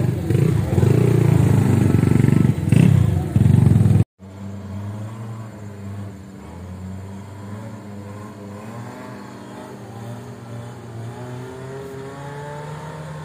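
Suzuki Jimny off-road engines: a loud, close engine revving for about four seconds, then after an abrupt cut a quieter, more distant engine working on a steep dirt climb, its pitch rising near the end.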